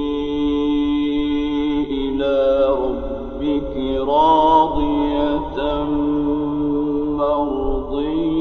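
Melodic Quran recitation in the mujawwad style by a solo male voice, holding long, ornamented notes that glide between pitches, the loudest stretch about four seconds in.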